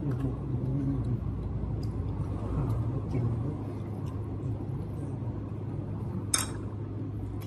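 A steady low hum over a low rumble, with a few faint clicks and one brief hiss about six seconds in.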